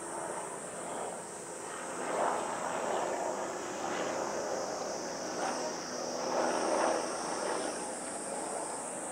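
Outdoor summer ambience: insects keep up a steady high-pitched drone over an indistinct background noise that swells about two seconds in and again around seven seconds.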